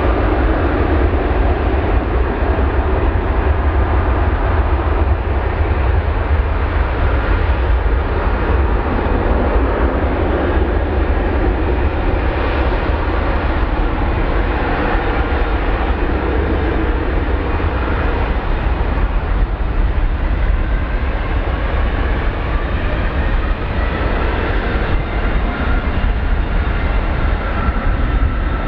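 Airbus A330-300's Rolls-Royce Trent 700 turbofans at takeoff thrust: a loud, steady jet rumble, with faint whining tones that glide slowly in pitch in the second half.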